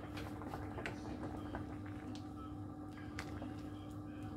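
Pot of spaghetti boiling on an electric stove: faint bubbling with scattered light ticks over a steady low hum.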